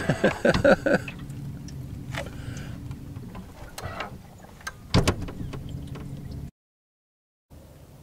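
A low steady hum with a single sharp knock about five seconds in. It then cuts off to a second of dead silence.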